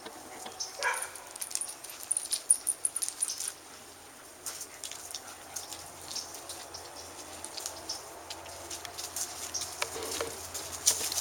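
A dog giving a short whine or yelp about a second in, among scattered light clicks and rustles.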